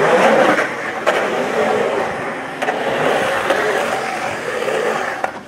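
Skateboard wheels rolling fast on smooth concrete in a skate bowl, a steady loud rumble with a few sharp clacks of the board.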